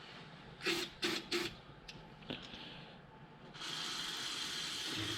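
Aerosol can of Berryman B-12 carburetor cleaner spraying into the small holes of a carburetor jet to clear out gunk: three short sharp sounds about a second in, then a steady spray hiss lasting about a second and a half near the end.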